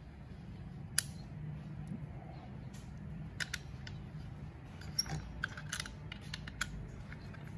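Small metal clicks and ticks of screws being backed out of a shotgun's front shroud and the parts handled, scattered irregularly with the sharpest click about a second in, over a low steady hum.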